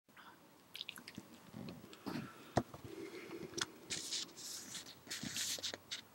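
A sheet of paper rustling and crinkling in the hands as it is held and shifted, with scattered soft clicks and one sharper tap about two and a half seconds in.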